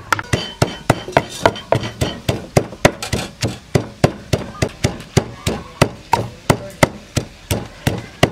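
Wooden pestle pounding sliced lemongrass, galangal, kaffir lime leaves and turmeric in a deep wooden mortar, a steady run of knocks about three a second as the herbs are crushed into a paste.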